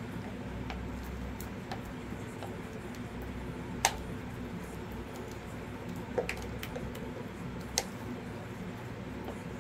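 A spatula working wet epoxy resin in a plastic mold, giving a few sharp clicks and taps, the loudest about four seconds in, over a steady low hum.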